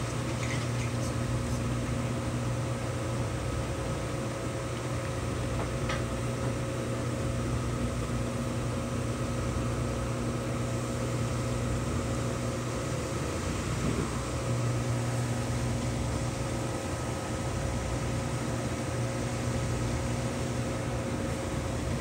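Brastemp Vantage top-load washing machine on its spin cycle, the drum spinning fast. It gives a steady motor hum carrying a few even tones, and the hum shifts slightly about halfway through.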